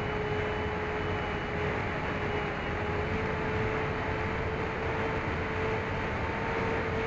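Onboard audio from an AtomRC Penguin FPV plane in flight: the steady whine of its electric motors and propellers over a heavy rush of wind, the pitch creeping slightly higher in the second half.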